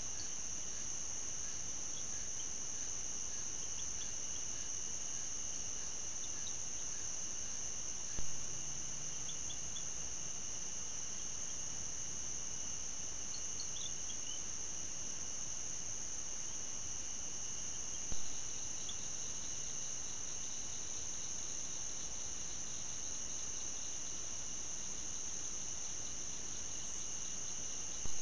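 Night insect chorus of crickets: a steady, high-pitched trill, with a short pop three times, about every ten seconds, where one trail-camera recording ends and the next begins.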